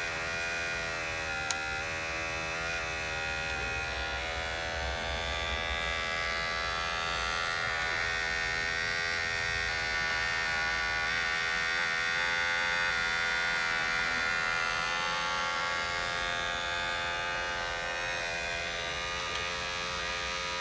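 Electric gear motors of a Huina radio-controlled toy excavator in CAT 322D livery, buzzing and whining steadily as the upper body swings and the boom and arm move; the pitch wavers slowly as the load changes. A single sharp click comes about a second and a half in.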